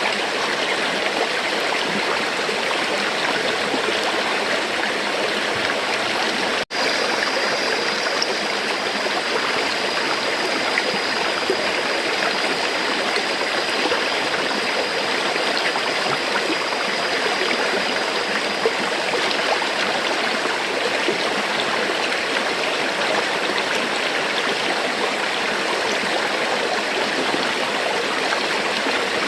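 Flowing river water, a steady rushing that cuts out for an instant about seven seconds in.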